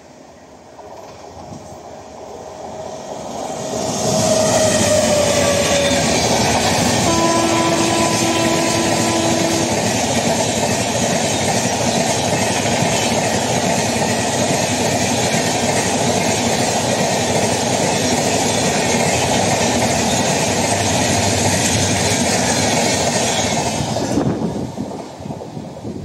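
WAP-7 electric locomotive hauling an LHB passenger rake passing at speed. The rumble and wheel clatter build over the first few seconds, the horn sounds for a few seconds, and the coaches run past steadily before the noise drops away near the end.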